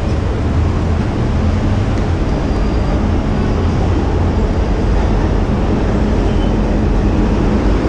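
Steady city street traffic noise with a low, constant engine hum.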